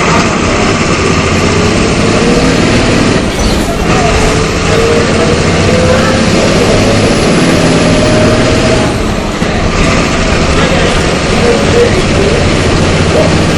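MWM 6.12 TCAE six-cylinder turbodiesel of a Volksbus 17.210 EOD bus pulling under load, with a whine that climbs slowly as the bus gathers speed. About nine seconds in the sound dips briefly, then the engine runs on steadily.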